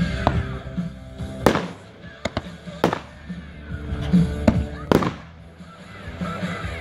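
Aerial firework shells bursting: a string of about six sharp bangs, the three loudest roughly a second and a half apart.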